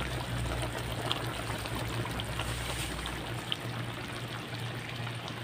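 Chicken tinola broth simmering in a wide metal pan on a stove: a steady bubbling hiss with a few small pops. A low hum underneath fades out about two-thirds of the way through.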